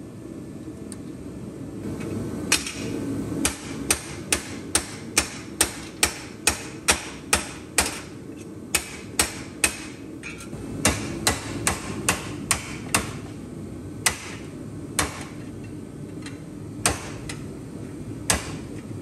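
A hammer striking a piece of sheet steel at the bench vise, shaping a patch piece: sharp metallic blows in runs of about two a second with short pauses between runs, over a steady low shop hum.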